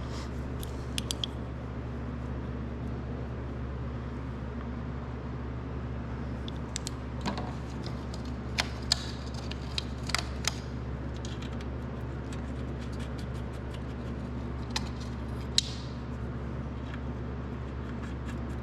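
Light metal clicks and clinks, a dozen or so scattered through, most around the middle and a couple near the end, as the connecting rod cap of a Kohler K241 engine is fitted onto the crankshaft and its bolts are started. A steady low hum runs underneath.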